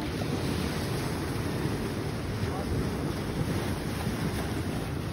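Wind buffeting a phone microphone on an open beach, over small waves washing onto the sand. It is a steady low rush with no distinct events.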